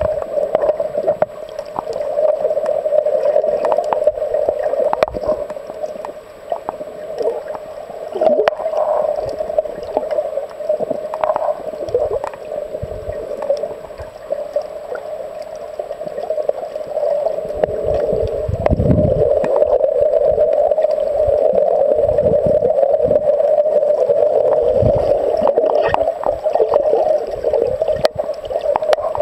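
Muffled underwater noise picked up by a camera held below the surface: a steady droning rush of water with gurgles and low whooshes as the water moves. It grows louder in the second half.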